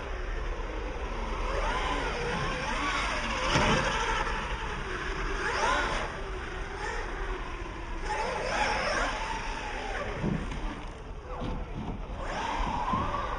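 Electric radio-controlled short-course trucks running: several overlapping motor whines rise and fall in pitch as the throttle comes on and off, over a steady background hiss.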